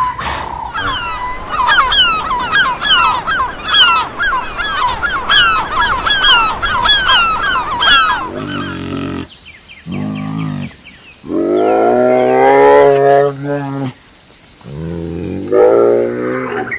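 A rapid run of short, high chirping calls, about two a second, from small birds or chicks. Then, after a cut, come several long, deep calls from a large animal, each lasting one to three seconds.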